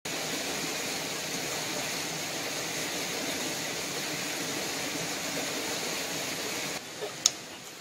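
Steady rushing outdoor noise that cuts off abruptly about seven seconds in, followed by a single sharp click.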